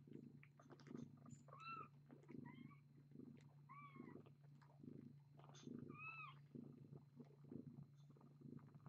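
Young kittens nursing on their mother cat, heard quietly: soft purring pulses and small suckling clicks, with about four short high mews.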